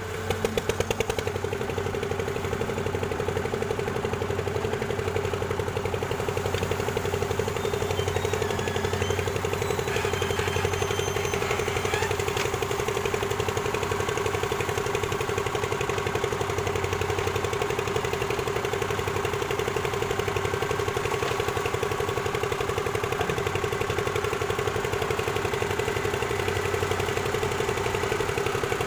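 Diesel engine of an excavator running steadily with a fast, even pulse.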